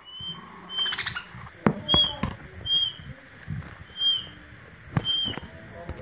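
Budgerigars in a wire cage giving short, high chirps, about six of them at roughly one-second intervals, with a few sharp knocks in between.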